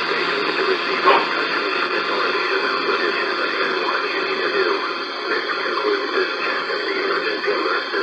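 FM station audio, music mixed with some voice, playing through a small radio's built-in speaker, with a single sharp click about a second in.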